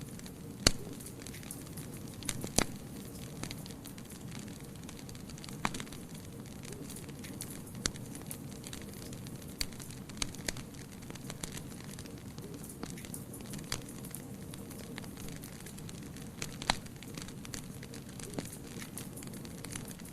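Fire burning in a fireplace, with a steady low rushing sound and irregular sharp crackles and pops. A few louder pops stand out: about a second in, a couple of seconds later, and near the end.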